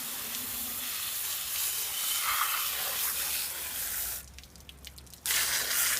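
A spray of water rinsing dirt off a window air conditioner's coils, a steady hiss that cuts off about four seconds in and starts again about a second later.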